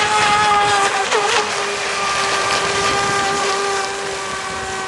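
Radio-controlled racing boat running at speed, its motor giving a steady high-pitched whine that dips briefly in pitch about a second in and recovers, over the hiss of spray.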